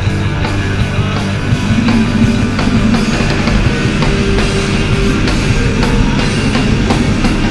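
Loud rock music with a steady drum beat.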